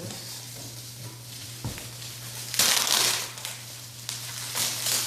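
Packaging being handled while unboxing a drone: crinkling and rustling in two louder bursts, about two and a half seconds in and near the end, with a single knock shortly before the first.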